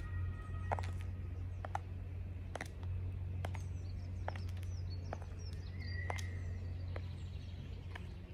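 Metal-tipped stiletto heels of So Kate pumps clicking on stone paving in a steady walking rhythm, about one sharp step a second. Birds chirp faintly over a steady low background hum.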